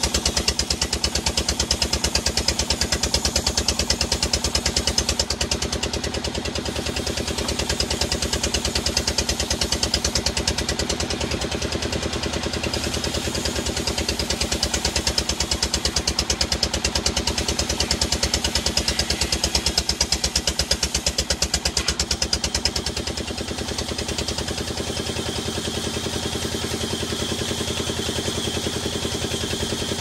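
Sawmill band saw running and ripping a large timber beam: a steady machine din with a rapid, even pulse, easing somewhat twice as the cut goes on.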